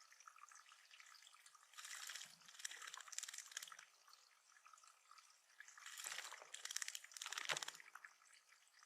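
Faint water splashing and dripping in a small backyard bird pond, in two stronger bursts about two seconds in and again near the end.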